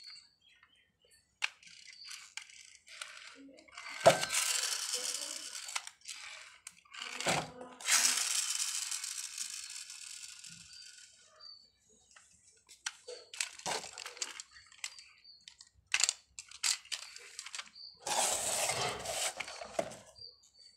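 Plastic toy vehicles being handled: clicks, knocks and rattles as a toy auto rickshaw is turned over and set down, with a few longer noisy bursts that fade out. Plastic blister packaging crinkles near the end.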